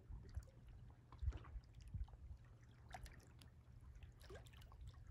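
Faint lake water lapping and gurgling against shoreline rocks: scattered small trickles and plops over a low steady rumble.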